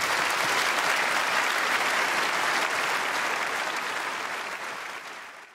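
Audience applauding, fading out near the end and then cutting off.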